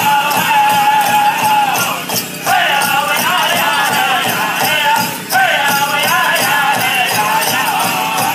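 Powwow drum group singing a chicken dance song in high, bending voices over a steady drumbeat, with the singing breaking off briefly about two seconds in and again about five seconds in. The dancers' bells jingle in time with the drum.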